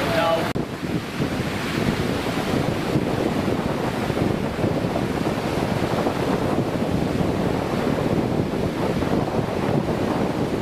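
The River Irwell in flood, fast water rushing and churning over a weir in a steady, unbroken noise.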